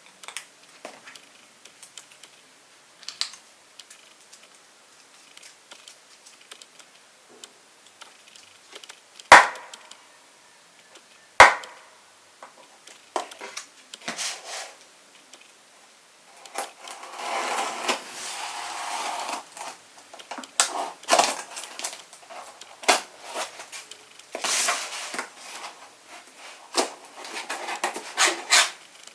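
A box and its packaging handled by hand during an unboxing: scattered small clicks and taps, two sharp knocks about two seconds apart, then a stretch of rustling followed by more clicks and rustles.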